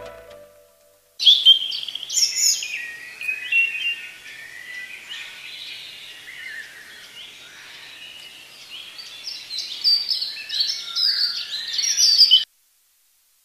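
A chorus of small songbirds, many chirping and singing at once. It starts about a second in, right after music fades out, and cuts off abruptly near the end.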